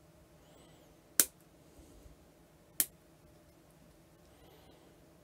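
Two sharp snaps, about a second and a half apart, of small clippers cutting through 3D-printed resin as the extra bits are snipped off a model railway bogie frame.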